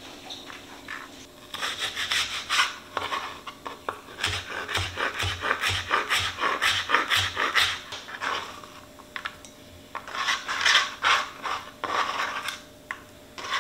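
Chef's knife dicing Spam and onion on a plastic cutting board: runs of quick chopping strokes against the board, with short pauses between runs.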